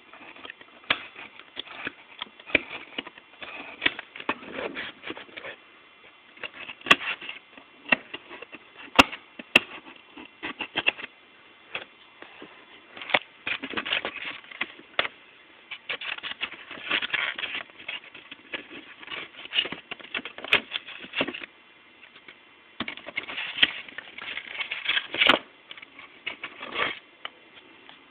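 Plastic packaging tray being handled and its tape cut with an X-Acto knife: irregular clicking, crackling and rustling in uneven bursts, with a couple of short lulls.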